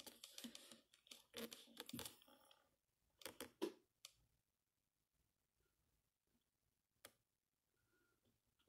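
Mostly near silence, with faint rustling and a few small clicks from fingers working thread through a sewing machine's needle; the machine itself is not running.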